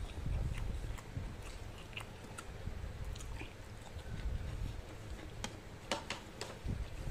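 Close-miked chewing and eating noises as a man eats rice and soy-braised chicken feet by hand, with scattered wet mouth clicks and smacks, a cluster of them about six seconds in.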